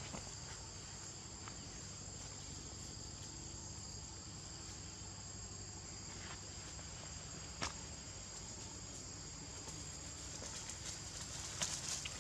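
Steady, shrill insect chorus holding two high constant tones. A few brief scuffs and clicks of dry leaf litter come from scuffling monkeys, one about two-thirds of the way in and a small cluster near the end.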